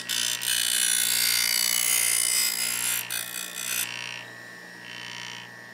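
Bench grinder running with a steady hum and whine while the steel bevel of an old rusty drawknife is ground on the wheel, giving a loud grinding hiss for about four seconds with a brief break near three seconds. After that the wheel touches the blade only lightly, in short patches, over the motor's hum.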